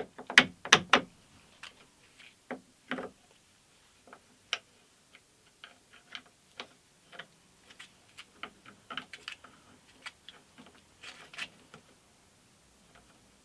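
A steel bolt and nut being fitted by hand through the foot of a cast-iron pillow-block bearing housing, giving irregular light metallic clicks and taps. A cluster of louder clicks comes in the first second.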